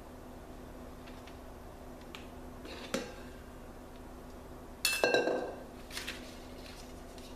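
Metal ice cream scoop and stainless steel mixing bowl clinking. There is a light click about three seconds in, then a louder clank with a brief ring about five seconds in as the steel bowl is set down on the counter, and a few softer taps after.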